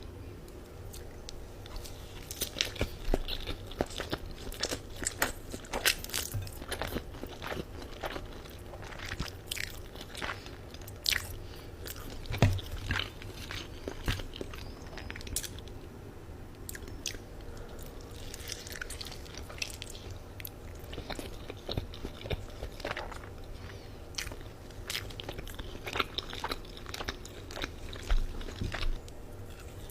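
Close-up mouth sounds of eating Buldak noodles and dumplings: steady chewing with irregular wet smacks and clicks, some louder bites scattered through.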